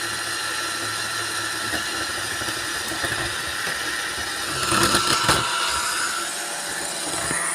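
Several robot vacuum cleaners running together: a steady motor and brush whir with a high whine, and a short stretch of clattering about five seconds in.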